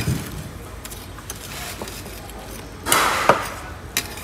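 Steel serving tongs clinking and scraping on a platter of fried fish: a short clatter about three seconds in with a sharp click, and another sharp click near the end.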